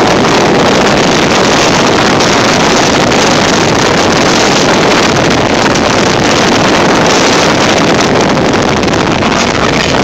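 Loud, steady rushing of strong wind from a hurricane-simulator wind machine, blasting across the microphone.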